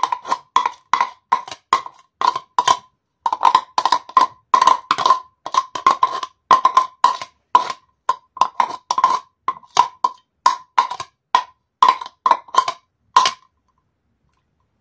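Metal spoon knocking and scraping against a glass container, emptying out the last bits of salad ingredients. Quick ringing clinks, about two to three a second, with a short pause about three seconds in, stopping shortly before the end.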